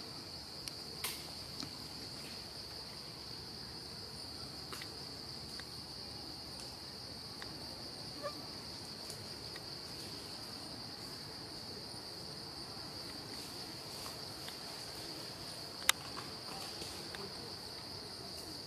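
Insects droning steadily on one high pitch, with a few faint scattered clicks and one sharp click about three seconds before the end, the loudest sound here.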